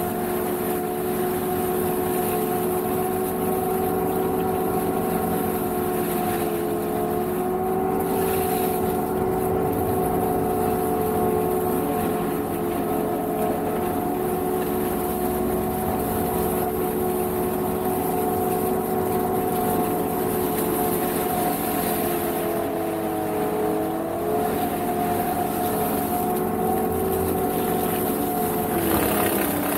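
Energreen ILF S1500 self-propelled boom mower running steadily under load, its engine and drive holding a constant hum while the boom-mounted mowing head shreds reeds and dry grass. The pitch sags briefly about two-thirds through and again at the end as the load comes on.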